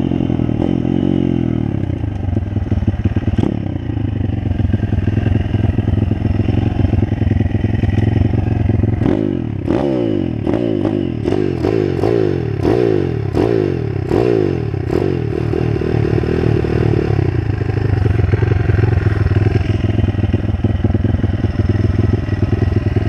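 Pit bike engine running while being ridden. In the middle stretch its pitch rises and falls quickly about ten times, roughly one and a half a second, with clattering clicks, before it settles back to a steady run.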